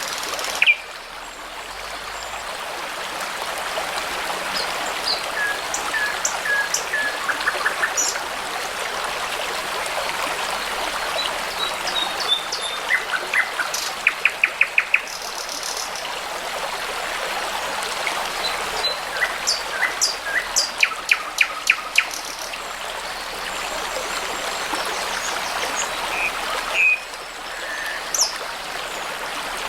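Songbirds singing over the steady rush of a babbling brook: short whistled notes and several fast trills of sharp repeated notes, the busiest stretches about halfway through and again a few seconds later.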